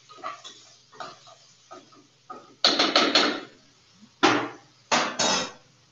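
A spoon stirring and knocking in a metal pot of rice and lentils being dry-toasted, with light, irregular knocks. From about halfway, three much louder clattering bangs follow.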